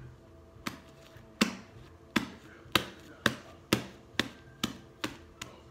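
A series of about ten sharp knocks, coming faster and getting fainter toward the end.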